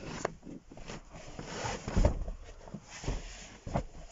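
Foam fold-out sofa cushions being unfolded and handled, with irregular soft thumps and rustling, the heaviest thump about two seconds in.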